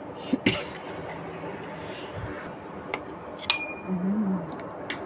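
Kitchen utensils clinking against a pot and bowl a few times, one strike ringing briefly, as cooked glutinous rice balls are scooped out of their boiling water.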